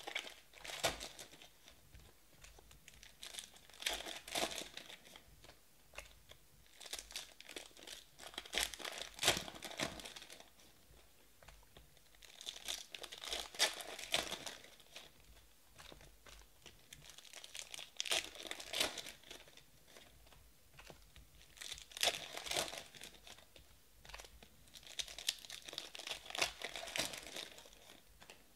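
Foil trading-card pack wrappers being torn open and crinkled by hand, in crackly spells every few seconds.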